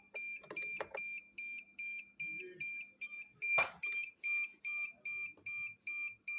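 Electronic buzzer of an incubator controller beeping rapidly and evenly, about three short high beeps a second, growing softer in the second half, with a few sharp clicks among them.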